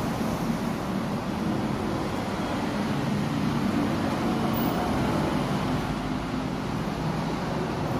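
Steady rumble of road traffic, even and unbroken, with no single sharp event standing out.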